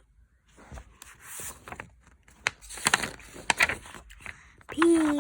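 Scattered light knocks and rustling, like handling noise, with a few sharp taps around the middle. A child's voice starts speaking just before the end.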